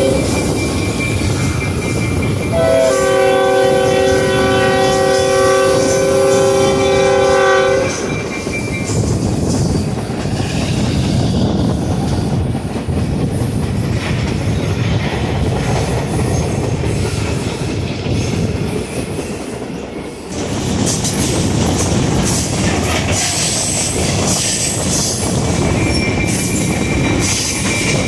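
Train sounding a long chime-like blast of several tones held for about five seconds, a few seconds in. Steady rolling rumble of the train on the rails follows, with a faint high wheel squeal near the end.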